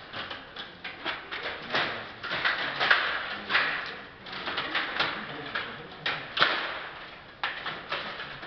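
Stiga Play Off table hockey game in play: the metal rods sliding and twisting in the plastic table and the puck and plastic players clacking against each other and the boards, an irregular run of quick knocks and rattles.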